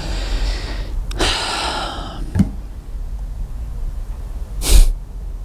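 A man breathing close to a clip-on microphone: two long breaths, the second louder, then a short sharp sniff near the end, over a steady low rumble.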